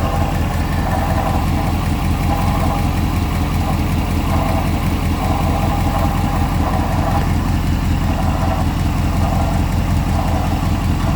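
Car engine idling steadily, with a mid-pitched tone that swells and fades about once a second over the running.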